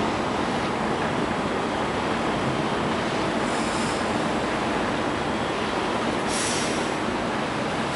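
Steady rumbling wash aboard a moving rail ferry: a low engine drone under wind and choppy water. Two brief hissy gusts come through, one about halfway and one later on.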